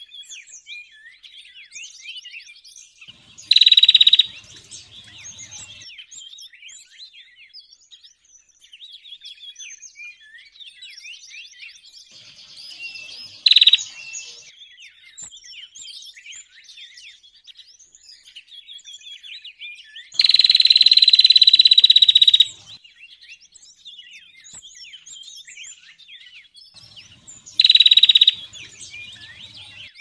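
Lure-call recording of small songbirds, ciblek (prinias) among them: a constant busy chatter of short, high chirps and twitters. Four times a loud, high buzzing trill cuts in; the longest lasts about two seconds near the middle, sinking slightly in pitch.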